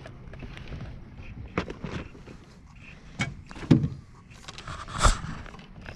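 Scattered knocks and clatter from rod and gear in a fishing boat while a hooked catfish is reeled in, with one heavier thump about five seconds in.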